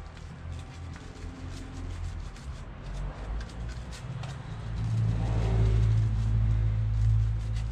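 A low vehicle engine rumble that swells about five seconds in and holds for a couple of seconds, over light scattered clicks of hand work on the motorcycle chain.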